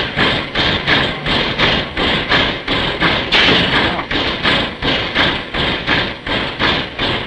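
Narrow-gauge steam locomotive No. 476 standing and panting in a steady rhythm of about two beats a second, each beat a harsh puff of steam and air.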